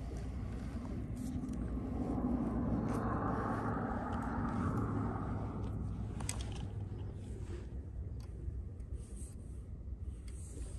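Casting with a baitcasting reel: the spool whirs for a few seconds as line pays out, swelling and then fading with a slowly falling pitch, followed by a few sharp ticks from the reel. A steady low rumble, likely wind on the microphone, runs underneath.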